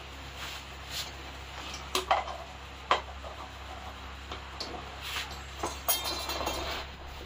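Sharp knocks and clatters of a metal snake hook and a plastic jar against a concrete floor, as a cobra is steered into the jar, with a short spell of scraping and rustling near the end.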